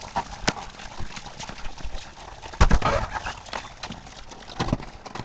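Footsteps and handling knocks of someone walking out the back of the house, over a steady hiss of rain. A louder thump comes about two and a half seconds in, and another near the end.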